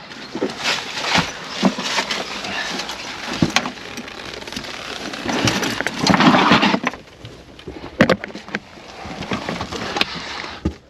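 Scraping, shuffling and scattered knocks of a person clambering through a narrow gap, clothing and gear rubbing and bumping against the surrounding rock or concrete. The scraping is loudest about six seconds in.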